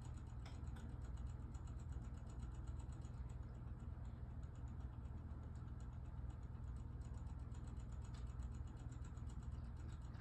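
Battery wall clock's movement ticking fast and evenly, several faint ticks a second, as it drives the hands forward to set its own time. A steady low hum runs underneath.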